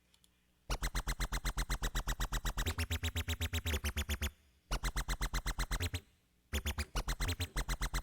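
Native Instruments Massive X software synthesizer playing a preset: a rapidly pulsing synth tone with deep bass, about ten pulses a second, played as three held notes that stop briefly a little after four seconds and again at six seconds.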